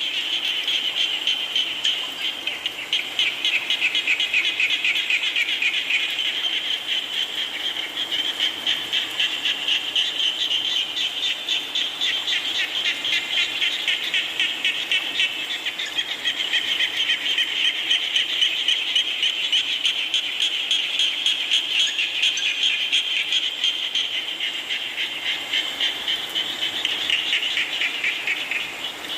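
A chorus of frogs calling in rapid pulsing trills that overlap into a continuous, slowly swelling din, over a steady hiss of falling rain.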